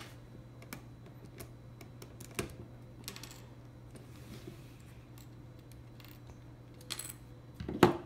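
Plastic LEGO bricks of a puzzle box clicking as they are pushed and slid by hand, in scattered small clicks. A louder clatter near the end as a small piece comes out and lands on the table.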